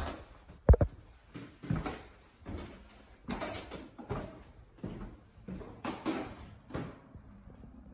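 Footsteps on wooden stairs and floorboards, a knock about every half second to a second, with one sharper thump about a second in.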